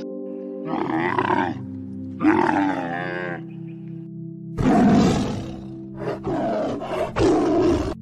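Background music with animal calls laid over it: two wavering growls in the first few seconds, a loud roar about halfway through, and three shorter growls near the end.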